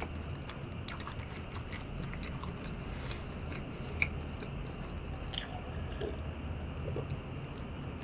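A person chewing soft, egg-soaked French toast close to the microphone: faint wet mouth clicks and smacks over a low steady room hum.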